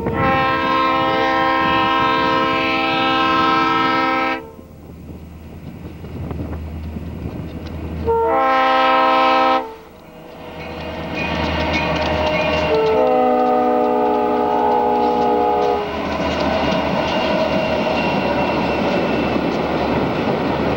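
Diesel freight locomotive's multi-chime air horn sounding for a grade crossing: a long blast, a short one and another long one, the last lower in pitch as the locomotives pass. Under the horn is the engines' rumble, and after it the wheels clack and rattle as the train rolls by.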